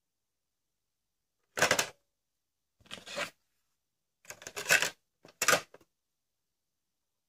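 Plastic clicks and clacks from the cassette deck of a Philips Roller D 8007 boombox as a tape cassette is slid into its open door and the door is pushed shut. There are four short bursts of handling noise, the loudest a sharp snap about five and a half seconds in.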